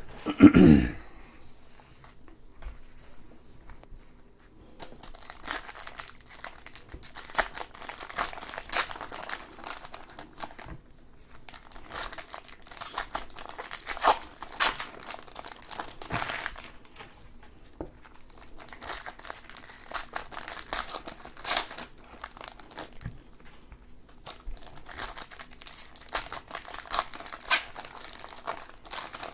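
Trading card packs being opened by hand: plastic and foil wrappers tearing and crinkling in repeated handfuls, with quieter pauses between. A brief sound slides down in pitch right at the start.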